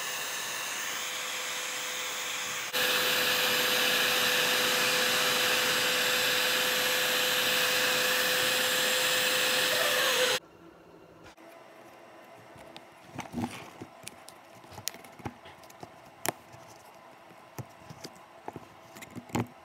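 Electric heat gun blowing steadily with a faint whine, louder about three seconds in, then cutting off suddenly about halfway. After it, scattered light clicks and taps as spent shotgun shells are pushed into drilled holes in a wooden board.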